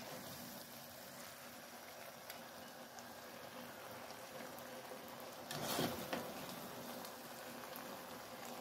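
Spaghetti in sauce sizzling faintly and steadily in a hot pan, with a brief louder scrape about five and a half seconds in as a portion is lifted out onto a plate.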